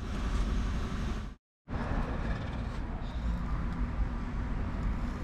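Steady low rumbling background noise, like a running machine or shop air, with no distinct event in it; it drops out abruptly for about a quarter of a second a little over a second in, then resumes unchanged.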